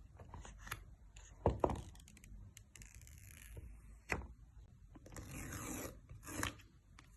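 Packaging of a new iPhone box being handled: scattered taps and knocks, then about a second of scraping, tearing sound about five seconds in, and a short sharp rustle near the end.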